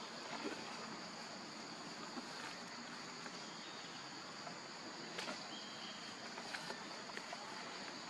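Steady high-pitched insect chorus droning in the background, with a few faint clicks and rustles scattered through it.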